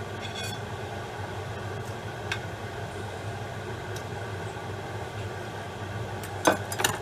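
Steady hum of a kitchen fan. A light click comes about two seconds in, and two sharp clinks come near the end as the plate and knife are handled.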